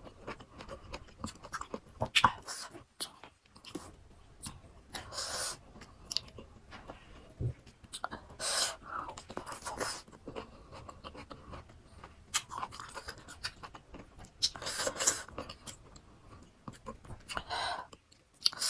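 Close-miked chewing of crunchy fresh fruit pieces from a rujak fruit salad, irregular and wet, with louder crunches every few seconds.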